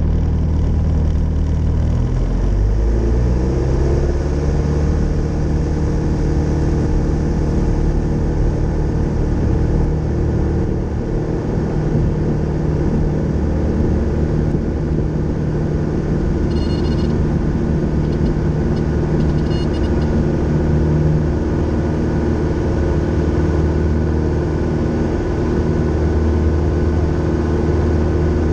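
Grumman Tiger's four-cylinder Lycoming O-360 engine and propeller heard from inside the cockpit: the pitch rises over a couple of seconds as the throttle comes up for takeoff, then it runs steadily at full power through the takeoff roll.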